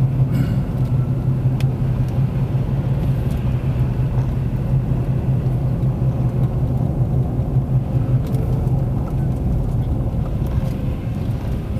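Car driving along a town road, heard from inside the cabin: a steady low engine drone over tyre and road rumble.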